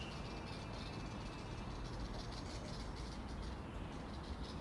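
Faint outdoor ambience: small birds chirping over a low, steady rumble.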